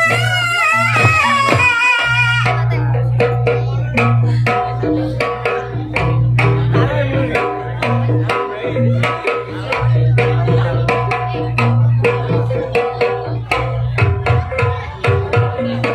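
Live jaranan music: hand drums struck in a busy pattern over repeated pitched metallic notes and a steady low hum. A wavering melody line plays over it for the first couple of seconds, then drops out.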